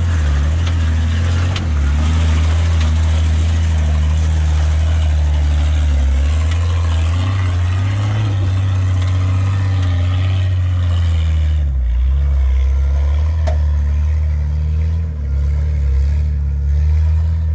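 Nissan GQ Patrol 4WD's engine at low revs as it crawls up a rocky track under load. It revs up for a couple of seconds around the middle, then eases off briefly near the end.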